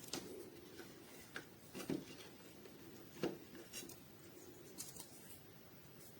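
Faint scattered clicks and rubbing sounds, like small objects being handled, over low room hiss; the two loudest clicks come about two and three seconds in.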